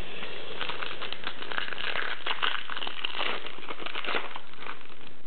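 Shiny foil wrapper of a 1998-99 Flair Showcase card pack crinkling as it is torn open by hand, an irregular crackle that thins out about four seconds in.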